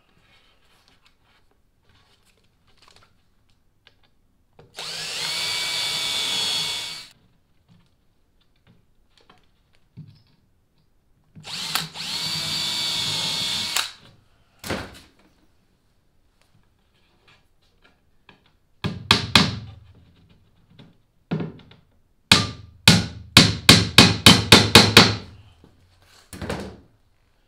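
Cordless drill running twice into plywood, each run a steady whine of about two and a half seconds. Then a claw hammer strikes a few blows, followed by a quick run of about ten, driving nails into the plywood.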